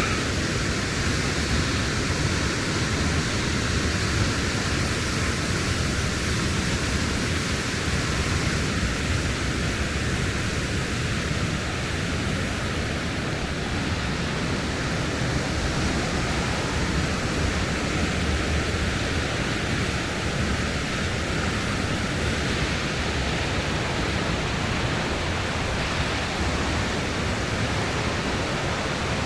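The steady, unbroken rush of water at Khamosh Waterfall, a large waterfall heard close by.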